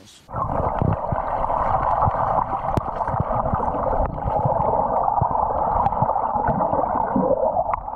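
Sea water heard underwater: a steady muffled rush with bubbling and irregular low knocks. It starts just after the beginning and stops near the end.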